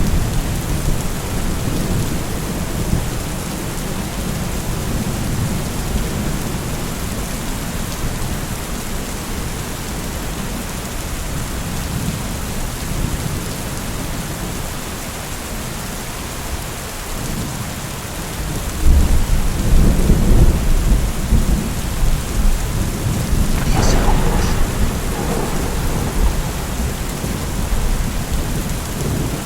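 Steady rain falling throughout. About two-thirds of the way through, a loud low rumble of thunder rolls in, with a sharper crackle a few seconds later.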